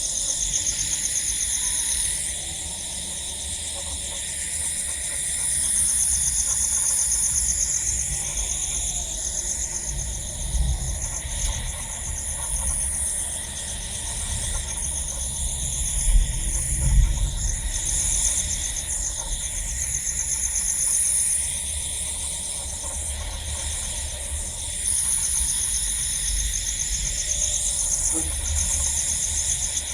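A chorus of crickets trilling: a dense, high-pitched pulsing that swells and eases every few seconds. A low rumble runs underneath, with a couple of louder bumps about halfway through.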